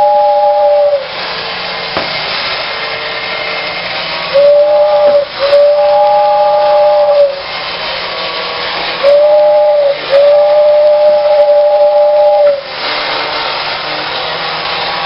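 Vintage Modern Toys Overland Express 3140 battery-operated tin toy train sounding its two-note whistle. The whistle comes in pairs, a short toot then a longer blast, twice, with a steady quieter hiss between the whistles. A whistle is already sounding at the start and stops about a second in.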